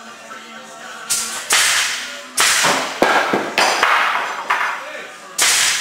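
A series of loud, sharp cracking hits, irregularly spaced, each dying away quickly; they begin about a second in after faint steady tones.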